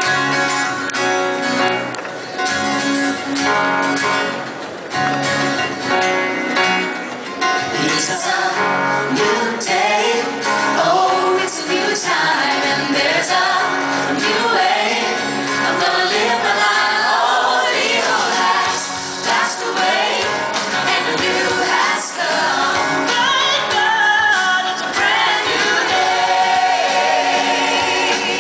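A contemporary Christian song performed live by a mixed group of male and female singers on microphones over instrumental accompaniment, amplified through the hall's PA. The opening is instrumental; the voices come in about eight seconds in.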